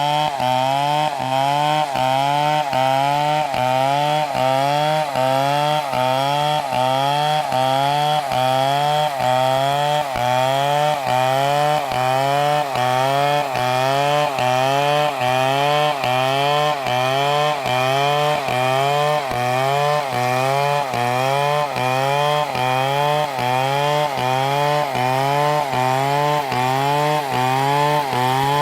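Chainsaw cutting through a dead palm trunk, its engine pitch rising and falling in a regular rhythm a little more than once a second as the chain works the cut.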